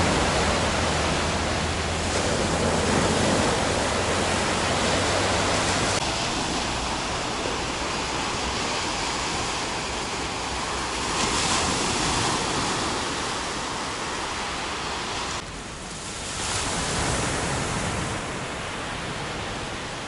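Small sea waves breaking and washing up a sandy beach, a steady surf hiss. A low steady hum lies under it for the first several seconds, then fades.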